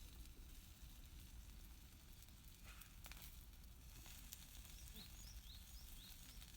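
Near silence: faint outdoor background with a low rumble, a few faint crackles in the middle and a run of short, high rising chirps near the end.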